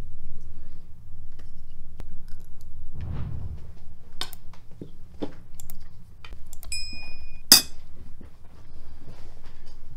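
Metal spoons clinking and scraping against china plates and a serving dish as pilaf is served, in a series of sharp separate clinks. A plate rings briefly just before the loudest clink, about seven and a half seconds in. A steady low rumble runs underneath.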